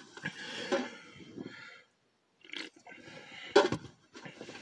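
Faint rustling and handling noises, then a brief gap, with a single sharp knock about three and a half seconds in.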